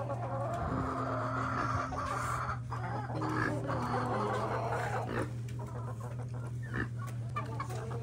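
A flock of chickens clucking and chattering over a low, steady hum.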